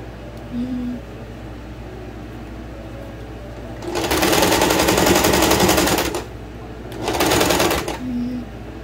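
Electric domestic sewing machine stitching in two runs: about two seconds of fast, even needle rhythm starting about four seconds in, a short pause, then about a second more near the end.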